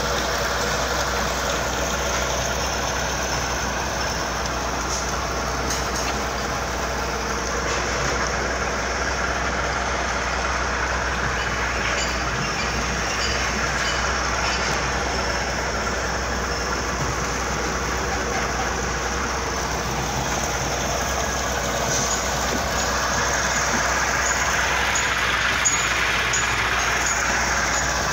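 Foam concrete mixing machine running steadily, a continuous mechanical drone with a low hum.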